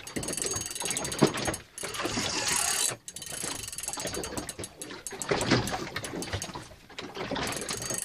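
Large saltwater spinning reel working under heavy load against a hooked shark: fast mechanical ratcheting clicks and gear noise in runs, broken by brief pauses.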